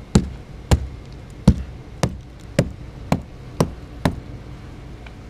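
A hand knocking on the ice-glazed door of a truck to crack off the sheet of ice that holds it frozen shut: eight sharp knocks about half a second apart, stopping about a second before the end.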